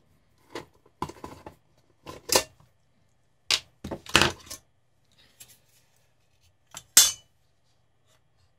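Scattered clicks and metallic clinks of small parts being handled: screws coming out of a cheap LED floodlight's front frame, a screwdriver set down, and the metal frame and glass front being worked loose, with the sharpest click a couple of seconds before the end.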